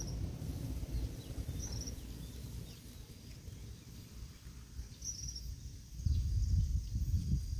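Wind rumbling on the microphone, gusting again about six seconds in, with a bird's short high chirp repeated three times.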